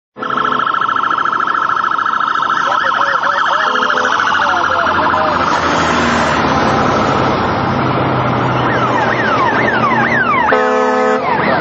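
Sirens wailing and yelping over a steady wash of traffic and engine noise, with repeated falling sweeps in the second half. A deep, rich horn blast sounds for under a second near the end.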